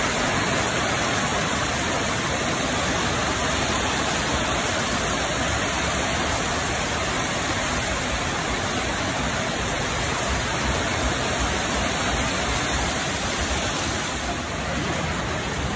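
Heavy rain pouring down steadily, a dense even hiss of rain falling on concrete and tree leaves.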